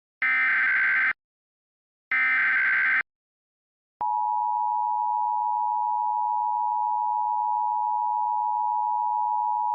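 Emergency Alert System SAME header: the last two of its three screechy digital data bursts, each about a second long with about a second's gap between them. About four seconds in, the steady EAS attention tone starts and holds, signalling that an emergency alert message follows.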